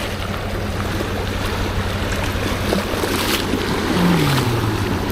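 Steady low drone of a boat engine running, under a constant rush of wind and waves at the shore. About four seconds in, a short low tone falls in pitch.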